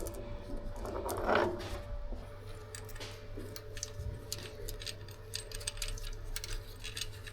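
Small metal parts being handled, with light clicks and clinks scattered through, over a steady workshop hum; a louder rustling sound comes about a second in.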